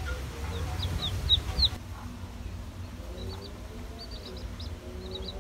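Three-day-old chicks peeping: a run of short, high, falling cheeps in the first two seconds, the loudest about a second and a half in, then scattered clusters of quicker peeps, over a low rumble.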